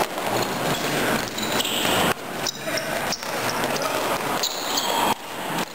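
Floor hockey play on a sports-hall court: plastic sticks and ball clacking and knocking against the floor and each other in quick, irregular hits, with a few short high squeaks.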